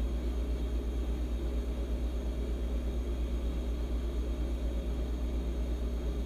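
A steady low machine hum, pulsing quickly and evenly.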